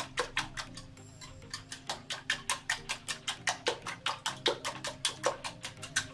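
Wire whisk beating eggs and cream in a glass bowl, the whisk ticking against the glass about five times a second, with a brief slowing about a second in.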